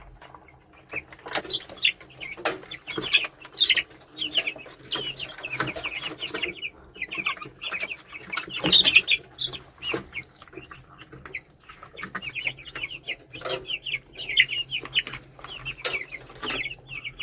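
A flock of week-old broiler chicks peeping constantly, many short high chirps overlapping, with scattered sharp clicks among them.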